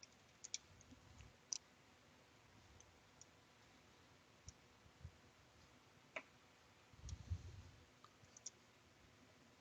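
Faint, scattered clicks and light taps of a small screw and hand tool being handled during assembly, with a short soft rustle about seven seconds in.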